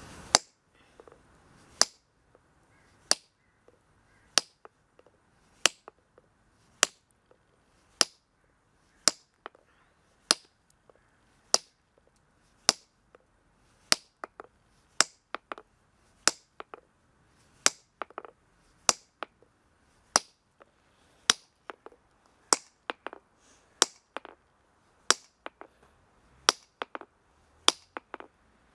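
Steel stonemason's hammer striking a granite block along a line across its top, a series of sharp, ringing taps about once a second that come quicker, nearly two a second, in the later part. This is hand-splitting of granite: the stone is worked along the line until it parts.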